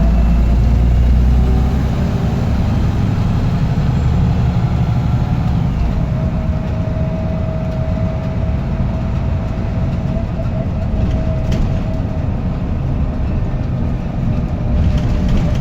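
Diesel bus engine running with a steady turbocharger whistle over a low rumble. The whistle grows stronger about six seconds in.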